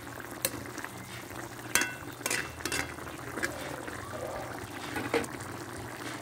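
Chicken curry simmering in a pan, with irregular sharp pops and clicks over a steady low hum.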